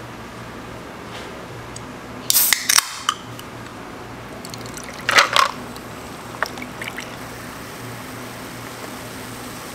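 Cola from a can being readied and poured over ice into a clear cup: two short loud bursts of clatter and hiss, about two and five seconds in, then the pour fizzing quietly as the drink foams up.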